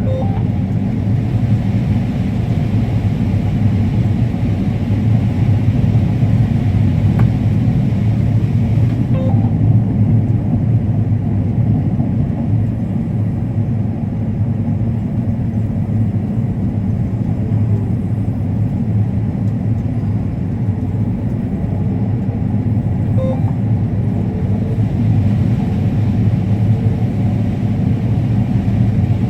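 Combine harvester running steadily while harvesting corn: a continuous low drone of engine and machinery, with some of the higher hiss dropping away about nine seconds in.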